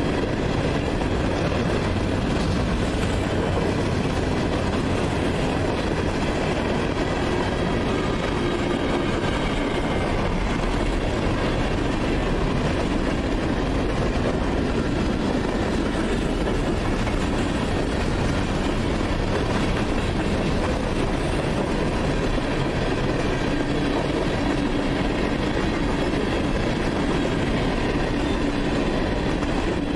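Freight cars of a long CSX mixed freight train (hoppers and boxcars) rolling steadily past, a constant wheel-and-rail rumble with clickety-clack over the rail joints.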